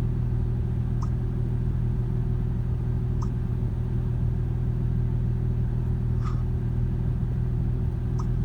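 Car engine idling steadily with a low, even rumble, with a few faint short clicks over it.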